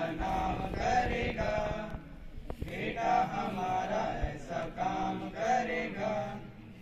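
A group of boys singing together in unison through a microphone and PA, with held notes between short breaks; the singing stops just before the end.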